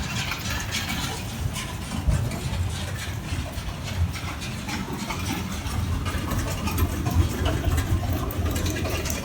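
Sugar beet piler machinery running: a steady low drone from the conveyors, with a constant scatter of clatter and rattling as beets shake their way up the belts.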